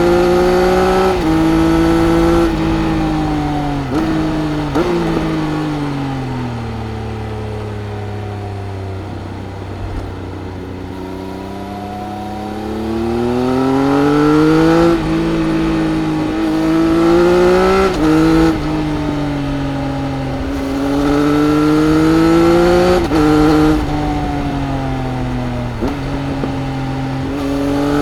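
Triumph Speed Triple RS inline-three engine with an Arrow exhaust, heard onboard while riding. The revs fall through a few downshifts over the first several seconds, hold low and steady for a few seconds, then climb hard through several upshifts, each gear change a brief dip in the note.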